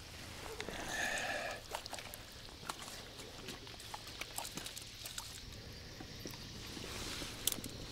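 Scattered small clicks, knocks and rustles as a just-landed crucian carp is lifted in a landing net out of the shallows and unhooked by hand, with a short higher-pitched sound about a second in and a sharp click near the end.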